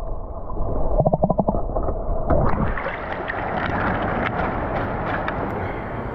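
Muffled underwater gurgling as the camera is held beneath the stream surface, with a quick bubbling flutter. Then an even splashing rush as a drink can is pulled out of the stream and water pours out of it.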